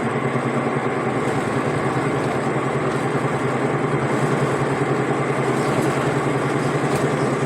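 Car driving steadily, a constant engine hum under an even rush of road and wind noise.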